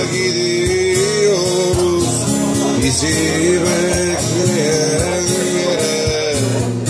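A man singing a Turkish song in long held notes while strumming an acoustic guitar.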